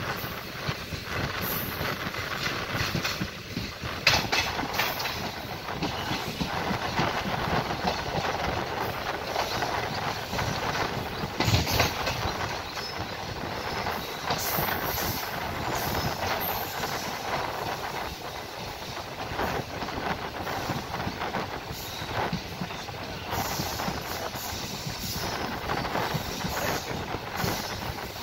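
Passenger train running along the track, heard from aboard: a steady rumble of wheels on rail, with a sharp knock about four seconds in and another about twelve seconds in.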